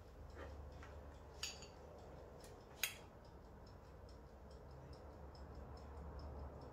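Quiet room tone with a steady low hum and faint, regular ticking, broken by two light clicks about a second and a half and three seconds in.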